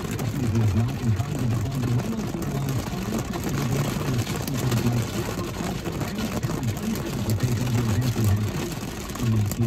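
Heavy rain pelting a car's windshield and roof, heard from inside the car: a steady hiss with fine scattered pattering.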